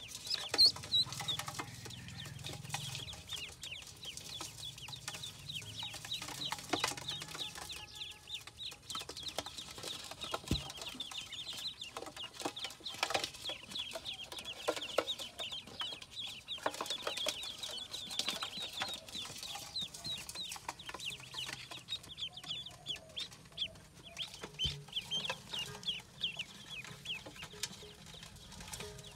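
A brood of ducklings peeping without pause, many short, high, falling calls overlapping, with a few faint knocks from handling.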